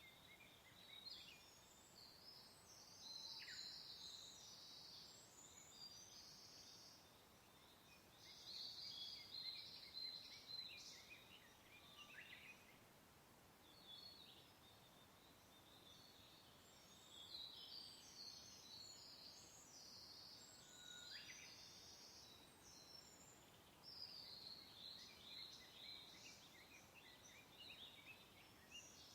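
Faint birdsong: small birds singing quick, high chirps and trills in repeated bouts, with short lulls between them.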